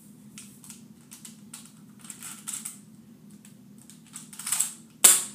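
Plastic clicking and rattling from a Ninja Steel toy blaster as it is worked by hand, then one sharp, loud snap from the blaster about five seconds in.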